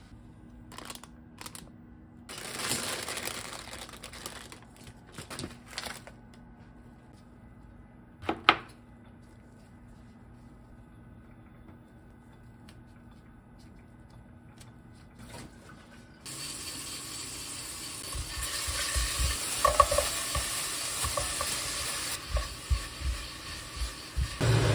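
Scattered rustling and clicks from handling packaged ingredients, with one sharp click, then a quieter stretch. About two-thirds of the way in, a sudden, steady sizzle starts as seasonings fry in oil in a stainless-steel pot, while a silicone spatula stirs and knocks against the pot.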